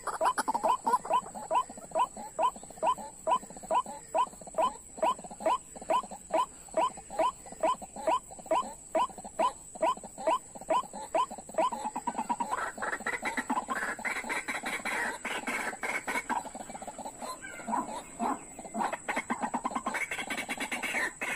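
White-breasted waterhen calling: a fast, even series of sharp notes, about three a second, for roughly twelve seconds, then a jumbled run of harsher croaking calls. These are the calls used as a lure in snaring this bird.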